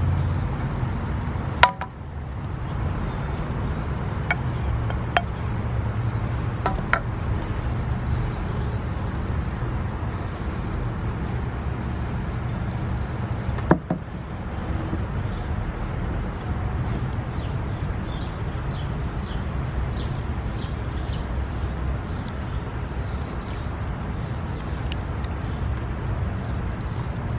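A steady low outdoor rumble, with a few sharp knocks of a wooden serving spoon against the dishes. The two loudest knocks come about two seconds in and about halfway through.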